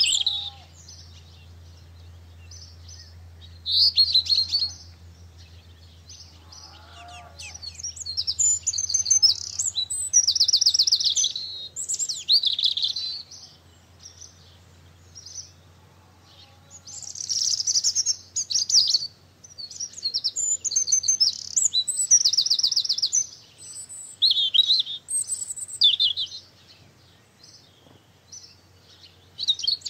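Songbirds singing: short, high phrases of rapid notes, repeated many times with pauses of a few seconds between them.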